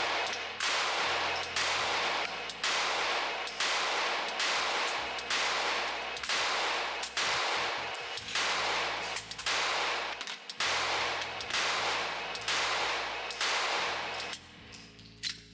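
Glock 43X 9mm pistol firing shot after shot at a steady pace, about two shots a second, each with a ringing tail.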